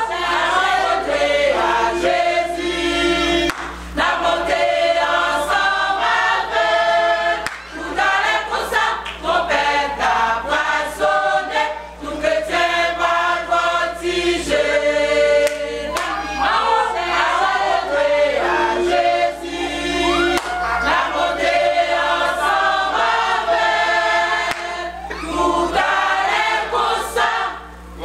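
Women's church choir singing a gospel worship song.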